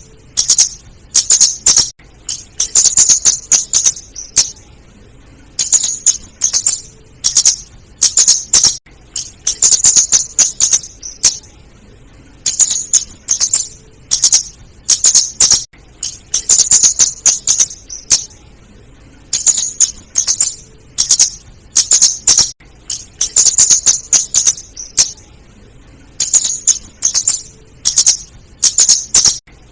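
Female scarlet-headed flowerpecker calling: rapid, sharp, high-pitched chips in short clusters, one cluster every second or two.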